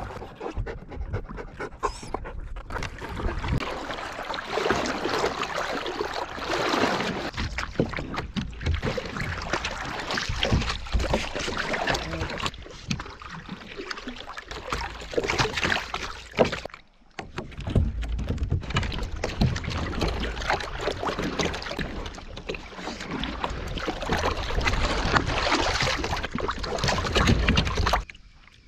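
Water sloshing and splashing against a kayak hull, a steady noisy wash that drops away briefly about 17 seconds in.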